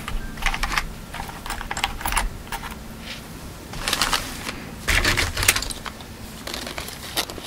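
Small metal earrings clicking and clinking as they are handled and picked out of a velvet-lined jewelry organizer box, in irregular quick clusters of tiny clicks.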